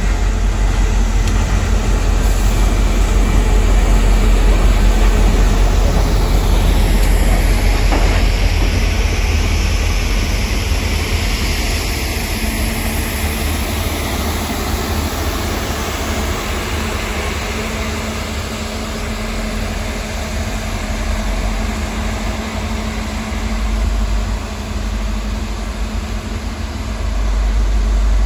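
Diesel locomotive passing, an EMD GP40PH-2 with its two-stroke engine and wheels on the rails making a deep rumble, loudest in the first several seconds, followed by rolling tank cars. A broad hiss of water spraying onto the rails swells while the tank cars go by.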